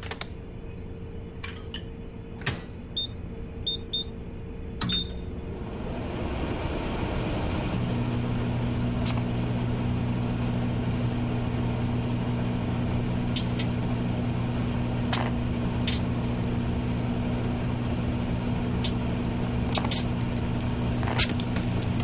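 Microwave oven being started: a few clicks as the door is handled and shut, three short keypad beeps, then the oven running with a steady electrical hum from about eight seconds in, with occasional sharp clicks over it.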